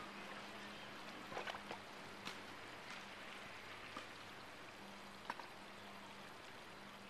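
Faint splashing of water in a plastic tub, with a few light clicks and splashes scattered through, over a steady faint hiss.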